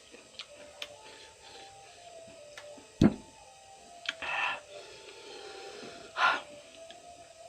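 Close-up eating sounds from a mukbang of raw cucumber: a sharp knock about three seconds in, then two short crunchy bites or chews, around four and six seconds in. A faint tune wanders in the background.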